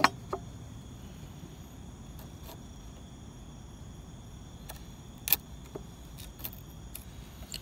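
Wood chisel paring shavings off a pine dovetail by hand: faint scraping with a few sharp clicks of the blade, the loudest about five seconds in.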